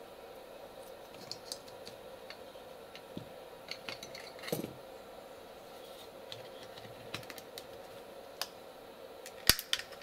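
Light plastic clicks and taps as a USB hub's circuit board is handled and fitted into its black plastic case, ending in one sharp snap near the end as the case closes. A steady low hum runs underneath.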